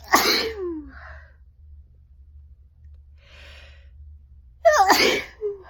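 A person sneezing twice, about four and a half seconds apart. Each sneeze is a sudden loud burst of breath with a voiced part that falls in pitch.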